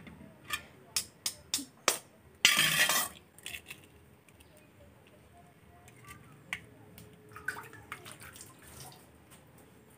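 An egg is cracked against a bowl: several sharp taps in the first two seconds, then a louder crackle of breaking shell about two and a half seconds in, with light clicks of shell and bowl later.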